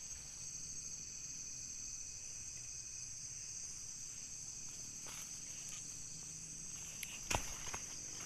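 Steady, high-pitched chirring of night insects, with a few soft clicks from movement and one sharper knock about seven seconds in.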